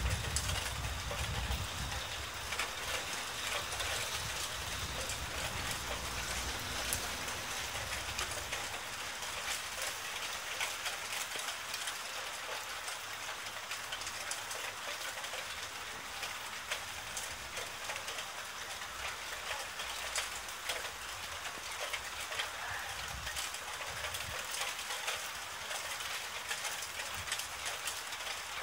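Steady rain in a thunderstorm: an even hiss with fine patter of drops. A low rumble, strongest at the start, fades out within the first couple of seconds.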